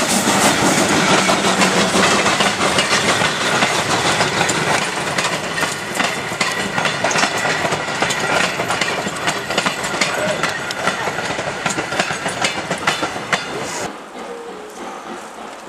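Railway passenger coaches rolling past close by, their wheels clattering over the rail joints with a stream of sharp clicks. Near the end the sound drops off abruptly to a much quieter background.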